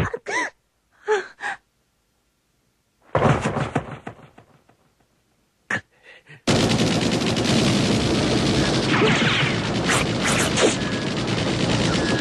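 Automatic rifle gunfire as an anime sound effect. A single blast about three seconds in dies away, then from about six and a half seconds on there is continuous, dense gunfire.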